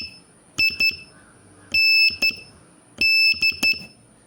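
Morse code sent as a high-pitched keyed tone: beeps of short dots and long dashes in letter groups with pauses between them, spelling the last letters of the word 'kind' (I, N, D).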